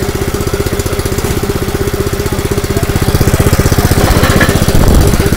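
Honda GX160 single-cylinder four-stroke petrol engine driving an air compressor, running steadily with a fast, even beat at raised throttle; it gets a little louder after about three seconds.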